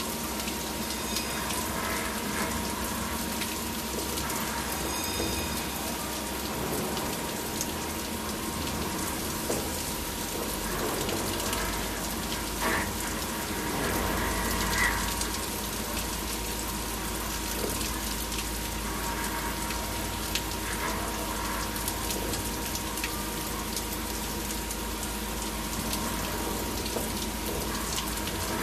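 Flood coolant spraying and splashing over the work inside a 5-axis CNC milling machine as its spindle cuts a part, with a steady high whine running through it. A few brief louder cuts stand out around the middle.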